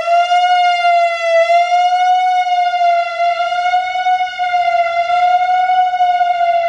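Whelen WPS-3000 electronic outdoor warning siren sounding a loud, steady high tone that wavers slightly in pitch.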